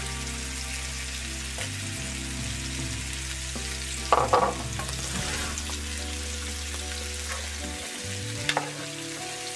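Pig blood cubes and onions frying in fat in a pan, a steady sizzle, with a wooden spatula stirring and scraping through them; the loudest scrapes come about four seconds in and again near the end. Soft background music with sustained low notes plays underneath.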